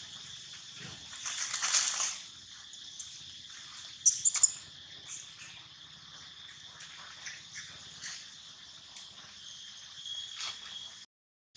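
A steady high-pitched chorus of insects. Louder scratchy noise comes in briefly around two seconds in, with a few sharp cracks around four seconds. The sound cuts off abruptly near the end.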